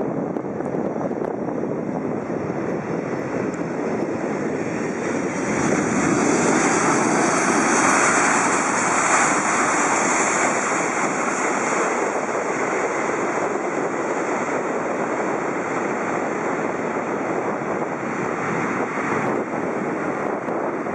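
Twin turbofan jet engines of a Boeing 767-200ER during its landing rollout: a continuous jet roar that swells and grows hissier as the airliner passes, about eight to ten seconds in, then settles to a steady level as it rolls away.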